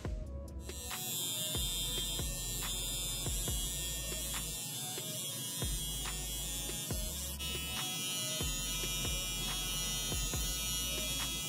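Electric T-blade hair trimmer running with a steady buzz while lining up the hair at the temple and sideburn.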